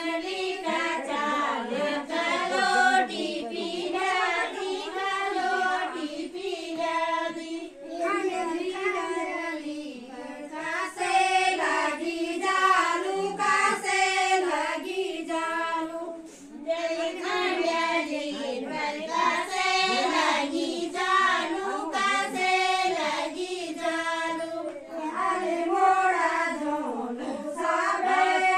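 A group of women singing a Garhwali thadya folk song together, without instruments, in repeated melodic phrases with short breaks between them.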